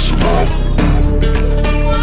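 Background hip-hop music: an instrumental stretch with a steady beat and a heavy bass line.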